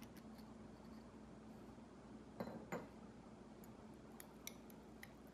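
Faint clinks and taps of metal chopsticks against a glass mixing bowl as the ground-meat dumpling filling is picked up for stirring. Two louder knocks come about two and a half seconds in, then a few light ticks, over a low steady hum.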